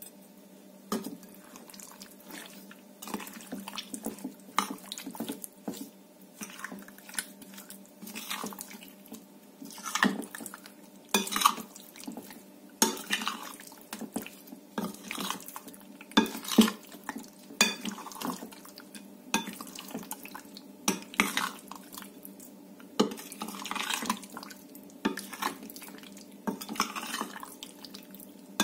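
A metal spoon stirring raw marinated chicken pieces and potato starch in a glass bowl. Wet squelching mixes with irregular clinks and scrapes of the spoon against the glass.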